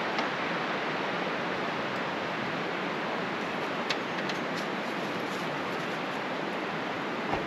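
Steady rushing of a nearby river, an even wash of water noise, with a few light clicks about four seconds in.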